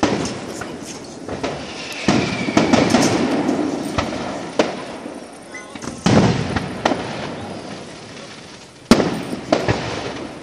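Fireworks display: aerial shells bursting with a string of sharp bangs, about nine in all, some coming in quick pairs, several trailing off in a fading rumble.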